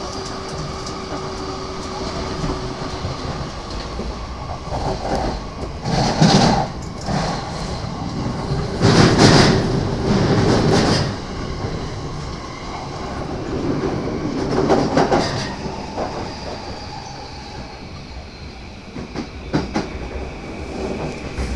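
JR East E235-series Yamanote Line train running on the rails, heard from inside a passenger car: steady wheel and track noise with clickety-clack. There is a faint steady whine in the first few seconds, and three louder rushes of noise about six, nine to eleven and fourteen seconds in.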